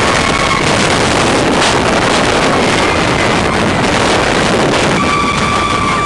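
Loud rush of wind over the microphone and the rumble of a steel roller coaster running at speed, with a rider's long held scream coming in near the end.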